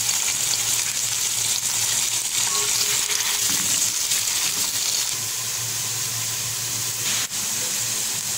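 Sliced onions sizzling in hot oil in a metal pot, a steady frying hiss, while a wooden spatula stirs them. The sound breaks off for a moment about seven seconds in.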